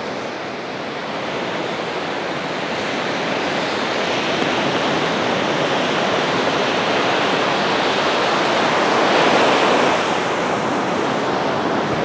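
Storm surf on the Black Sea breaking and washing up a sandy beach: a steady rushing that slowly swells, loudest about nine seconds in, then eases a little.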